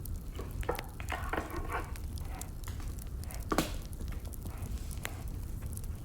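Firewood burning, crackling with scattered sharp pops over a steady low rumble; the loudest pop comes about three and a half seconds in.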